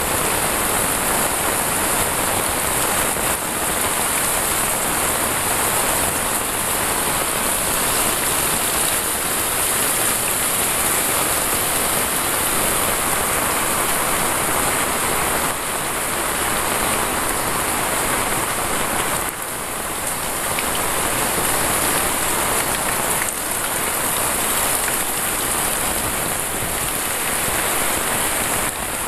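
Heavy tropical rain pouring onto roofs, paving and foliage: a dense, steady hiss with water running off the roof edges.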